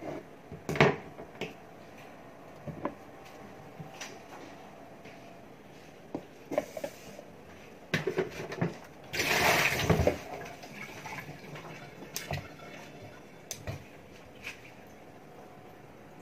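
Light knocks and clicks of grapes and plastic bowls being handled. About nine seconds in there is a short rush of tap water lasting about a second.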